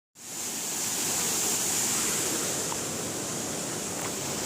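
Waterfall rushing, a steady even noise that fades in right after a brief silent cut.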